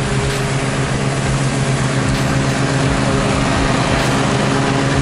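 Gravely zero-turn riding mower's engine running steadily while it cuts grass, growing a little louder as it drives up and passes close by.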